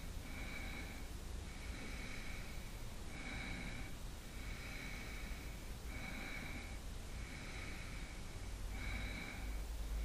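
A person breathing steadily, in and out about every three seconds, with a faint whistle in each breath.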